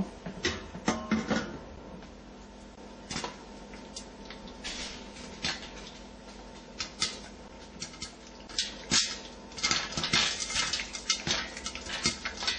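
Popcorn kernels popping in hot oil in a stainless steel pot under a glass lid. A few scattered pops at first over a steady low hiss, becoming quick, dense popping from about nine seconds in. The lid clinks onto the pot at the start.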